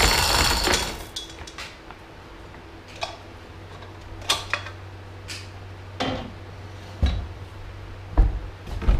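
A metal lifting chain rattling in a burst during the first second, then clinking and knocking against the aluminium snowmobile rack about a dozen times, with a steady low hum underneath.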